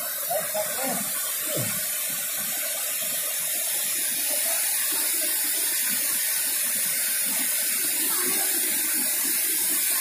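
River water rushing over rocks: a steady, even hiss, with a few faint voices in the first couple of seconds.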